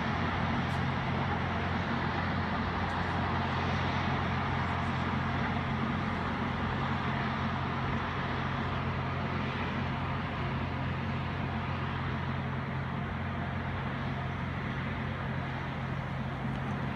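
Loram rail grinder train grinding the rail as it passes: a steady, dense grinding noise over the low, even drone of its diesel engines, easing off slightly near the end as it moves away.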